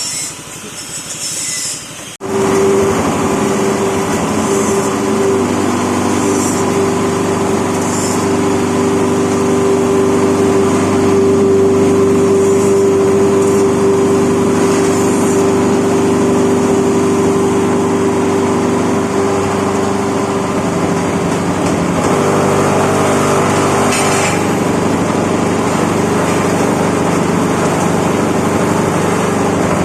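Tobacco-stalk chopping machine running, a loud steady mechanical hum that comes in abruptly about two seconds in and holds steady.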